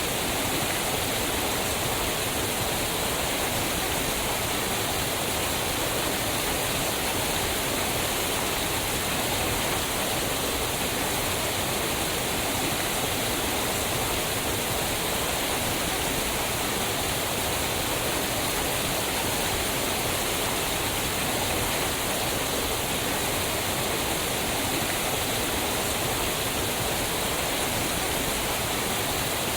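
Waterfall: falling water rushing steadily, an even hiss and rumble with no breaks.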